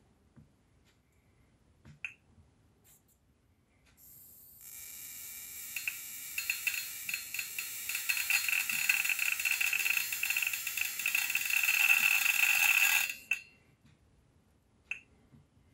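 High-voltage discharge from a homemade circuit driving a CRT tube: a harsh hiss full of crackles that starts about four seconds in, builds up, and cuts off suddenly about nine seconds later. A small click comes about two seconds in.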